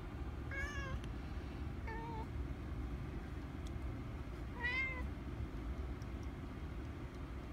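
Domestic cat giving three short meows, the last one the loudest, while watching a praying mantis through window glass. A steady low rumble runs underneath.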